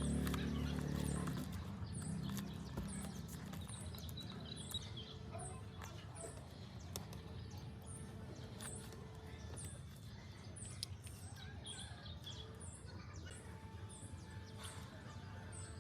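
A small bird chirping over and over, short high chirps roughly once a second over faint background noise. A low engine-like rumble fades out in the first second or two.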